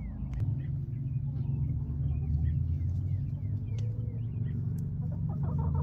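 A hen clucking in a quick run of short clucks near the end, over a low steady rumble. Small birds chirp faintly and repeatedly in high, falling notes.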